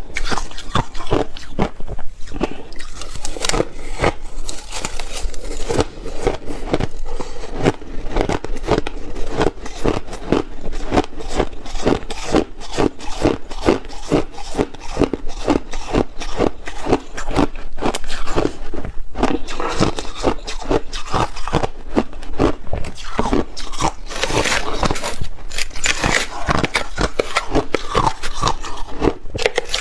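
Ice being bitten and chewed close to the microphone: a steady run of crunches, several a second.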